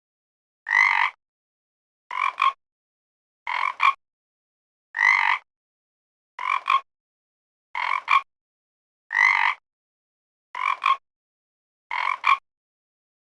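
A frog croaking in single calls about every one and a half seconds, nine times, with silence between them. Every third call is a longer croak that rises in pitch. The others are shorter croaks, each ending in a quick sharp second note.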